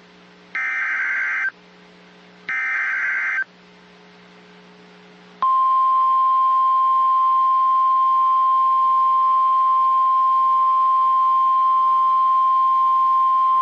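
NOAA Weather Radio alert signal: the second and third bursts of the SAME digital header, each a harsh buzzing data screech about a second long with a short gap between. About five seconds in, the steady 1050 Hz warning alarm tone starts and holds, announcing a warning about to be read.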